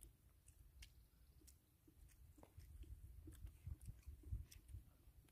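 Faint sounds of eating by hand: quiet chewing and small scattered clicks over a low rumble.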